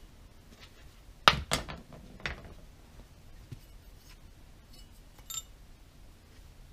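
A few sharp metallic clinks and knocks from a cylinder head and valve being handled on a workbench: three close together between about one and two and a half seconds in, then a couple of faint ticks.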